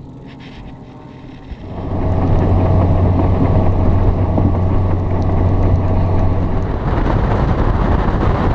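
Boat's outboard motor running at speed, coming in loud and steady about two seconds in with a low hum, wind and water rushing past the microphone; near the end the hum eases and the rushing grows.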